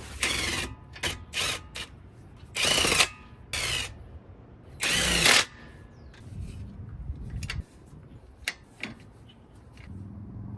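Power tool running nuts onto wheel-spacer studs at a car's hub, in about seven short bursts, some very brief and the longest about half a second. Near the end come a few light metallic clicks.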